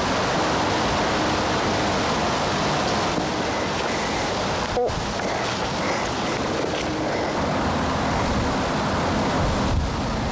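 Steady, loud rushing noise over the recording, broken by a brief dropout about halfway through.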